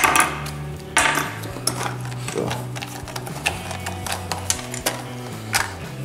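Hands handling a clear plastic blister pack and small tools on a metal-topped workbench: a string of sharp plastic clicks, crinkles and light knocks, the loudest at the very start and about a second in.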